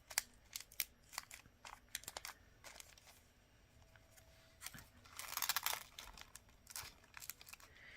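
Small plastic bead packets being handled: faint scattered clicks and rustles, with a short stretch of crinkling about five seconds in.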